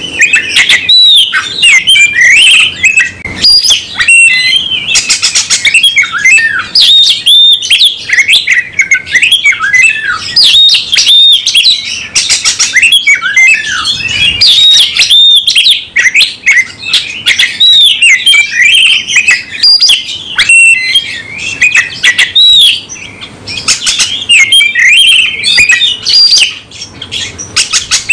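Oriental magpie-robin (kacer) singing loud and without pause: a varied stream of rapid whistles, chirps and trills. This is the insistent song of a bird in fighting mood, running through its full repertoire.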